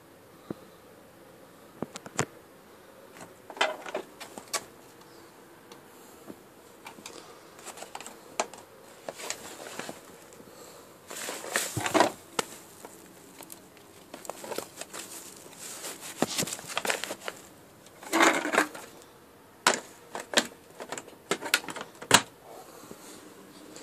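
Plastic clicks, knocks and short rattles from a Hoover Turbopower 2 upright vacuum cleaner being handled by hand while switched off, its bag compartment opened and worked. The loudest clatters come about halfway through and again a few seconds later.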